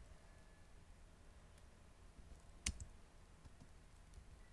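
Near silence broken by a single sharp click of a computer keyboard key about two and a half seconds in, with a couple of much fainter ticks around it.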